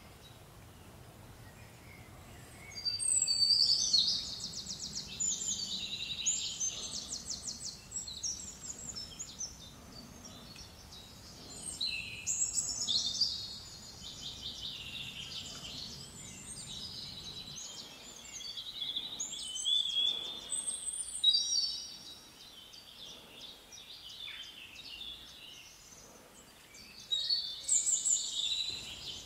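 A songbird singing in high, warbling phrases of a few seconds each, four phrases with pauses between them. A faint low background rumble stops about two-thirds of the way through.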